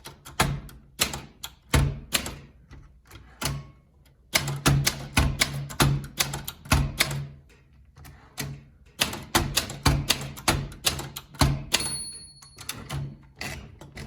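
1965 Olympia SF portable typewriter typing an alignment test: quick runs of crisp typebar strikes, broken by two short pauses. Near the end the margin bell dings once.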